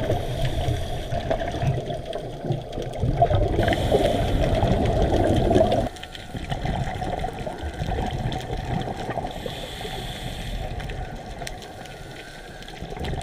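Muffled underwater wash of water moving around a camera held underwater, with scattered small clicks and pops. About six seconds in it drops suddenly to a quieter, steadier wash.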